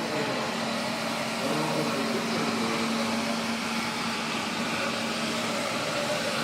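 Floor cleaning machine running with a steady motor hum.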